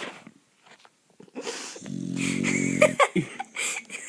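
Dog snoring: after a near-silent pause, one loud, low snore of about a second comes about two seconds in.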